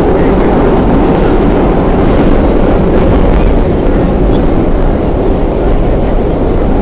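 Vintage R1/9 subway car running at speed, heard from inside the car: a loud, steady rumble of wheels and motors.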